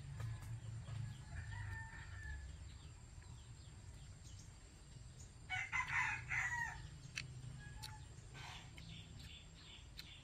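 Rooster crowing: one loud, close crow lasting about a second, a little past halfway, with another fainter crow about a second and a half in.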